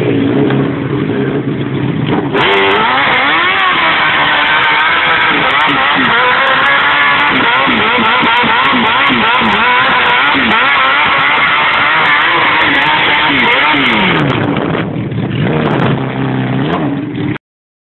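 Honda motorcycle engine revving hard during a rear-tyre burnout, its pitch rising and falling over the hiss and screech of the spinning tyre. It settles back after about fourteen seconds and cuts off suddenly near the end.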